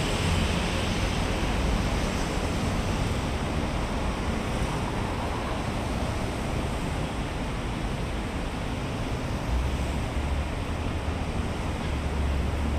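Steady wash of road traffic from a multi-lane highway junction: tyre noise and engines of passing cars and vans. A deeper engine rumble from heavier vehicles swells at the start and twice more in the last few seconds.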